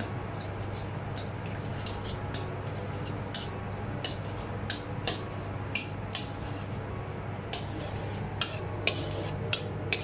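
Metal ladle stirring coconut cream in a steel wok, scraping and clinking against the pan. The clinks get sharper and more frequent in the second half, over a steady low hum.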